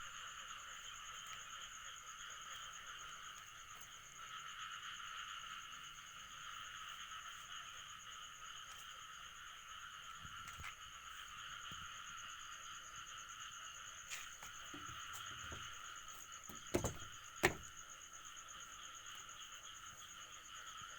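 Steady chorus of calling frogs and insects, a continuous high trilling. Two sharp knocks come late on.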